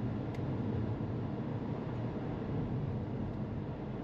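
Steady in-cabin driving noise of a SsangYong Torres SUV cruising at about 50 km/h: an even hum of tyre, road and engine noise.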